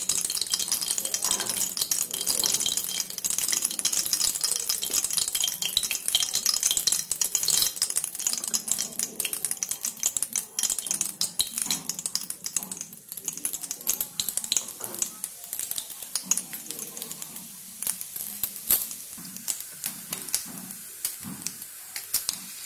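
Hot mustard oil crackling and spitting in a steel kadai as whole cumin seeds and dry red chillies are tempered in it. The crackle is dense at first and grows sparser in the second half.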